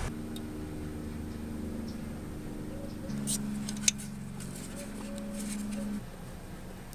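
Chevy Aveo's engine idling, its idle speed shifting in steps about three seconds in and again near the end. A few sharp clicks come partway through.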